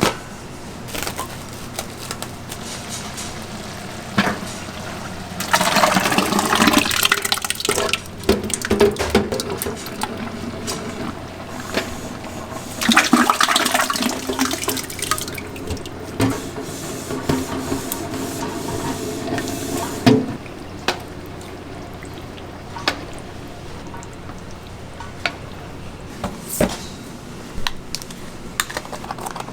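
Kitchen work: water gushing from a tap in two rushes of a couple of seconds each, among scattered clicks and knocks of utensils and containers.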